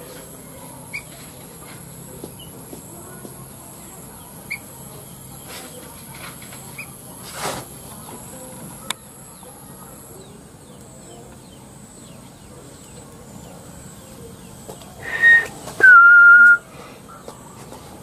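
A few faint short chirps, then near the end a loud two-part whistle: a short high note, then a note that dips slightly in pitch and holds for under a second.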